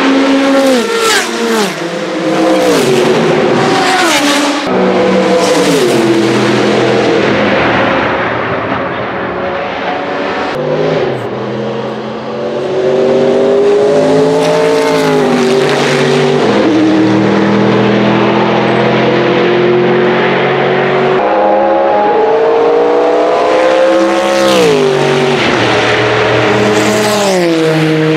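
Group C sports-prototype race car engines running past at speed. The engine note falls in steps several times in the first few seconds as a car brakes and shifts down. It then holds steady for a long stretch and falls sharply again near the end.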